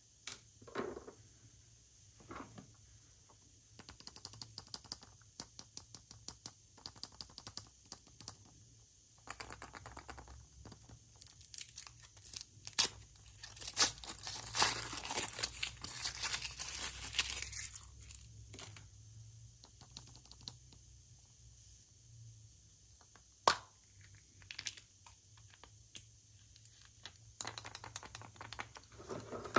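Packaging being torn open and crinkled by hand: scattered rustles and small clicks, building to a long stretch of dense crackling tearing about halfway through, with a single sharp snap later on.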